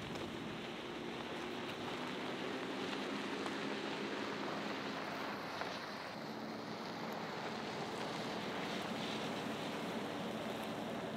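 Compact SUV driving slowly across a dirt and gravel clearing: a steady engine hum under tyre and road noise.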